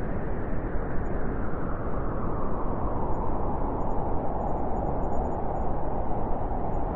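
Howling wind: a steady, dense rush of noise, with a howling band in the middle of the range that grows stronger about halfway through.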